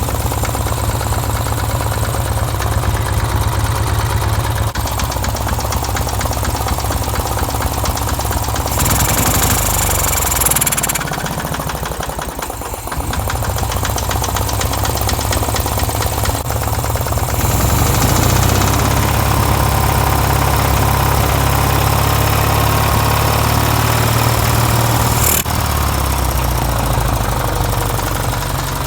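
Robin EY21 engine of a Denyo Handy 200 engine welder running steadily, its speed sagging briefly about twelve seconds in and then picking up again. A short hiss sounds about nine seconds in.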